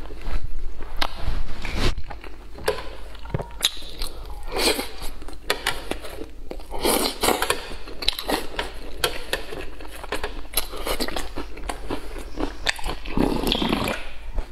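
Close-miked mukbang eating sounds: wet chewing and slurping of food taken from a spicy red broth with chopsticks, in dense irregular clicks and smacks. Near the end, slurping broth straight from the rim of a metal tray.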